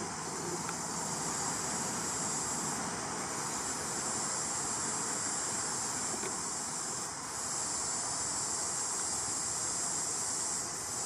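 Steady high-pitched insect drone over a constant background hiss, dipping briefly a couple of times.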